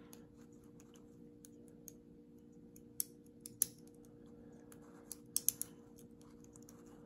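Lock pick and tension wrench working the pins inside a Lockwood padlock: faint scattered metallic ticks, with a few sharper clicks about three seconds in and a quick cluster of three or four clicks about five and a half seconds in.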